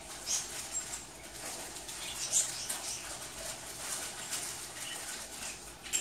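Irregular rustling and scraping with light clicks and ticks as the folding rollaway bed is handled and unpacked; a few sharper ticks stand out, one about two seconds in.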